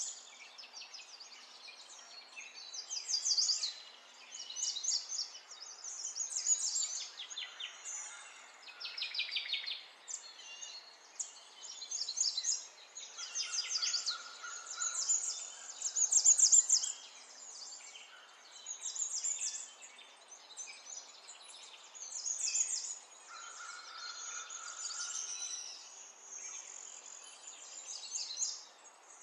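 Birdsong: fast trills and chirps in short phrases every couple of seconds, over a faint steady background hiss.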